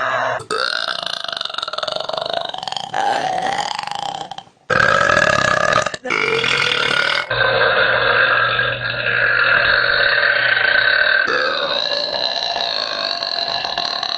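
Women burping: a string of long, drawn-out burps spliced one after another from different recordings, with abrupt cuts every one to four seconds. The longest, from about seven seconds in, is held at a steady pitch for about four seconds.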